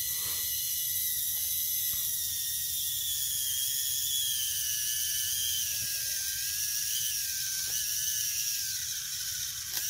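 Small geared electric motor whining steadily as it steers a 3D-printed rover wheel under heavy load, its high pitch wavering and drifting slightly lower near the end. A few faint clicks are heard over it.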